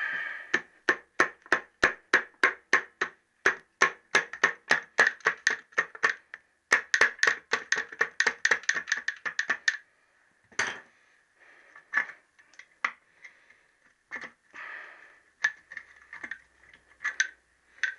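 A hammer tapping on the metal of a motorcycle's engine and gearbox casing. The taps come quickly and evenly, about three or four a second, for some ten seconds with a short break, then slow to scattered single knocks.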